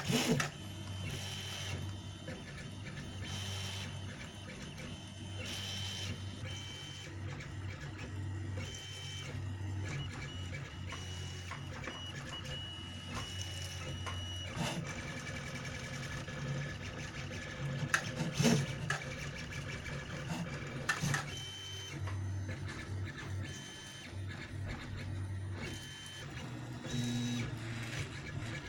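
Velleman K8200 3D printer running a print job: its stepper motors whine in short steady tones that jump in pitch as the moves change, over a steady low hum. A few sharp clicks come about two-thirds of the way through.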